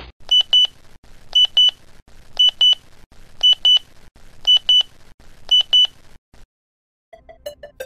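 Digital alarm clock beeping: six high electronic double beeps, about one pair a second, then they stop. After a short gap, music starts near the end.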